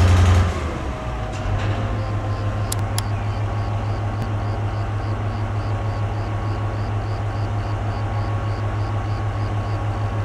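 Diesel shunting locomotive idling with a steady low hum. It is louder for the first half second, then settles lower. A faint high ticking repeats about two or three times a second, and there are two short clicks about three seconds in.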